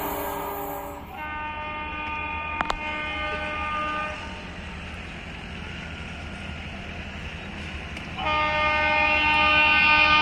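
Diesel locomotive horn, an Indian Railways WDM-3A, sounding two long blasts of about three seconds each; the second is much louder as the locomotive approaches. Another horn is dying away in the first second.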